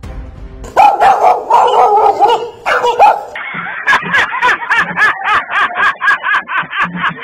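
Dog barking and snarling, loud and agitated, starting about a second in, then breaking into a fast run of short yapping barks, about four a second.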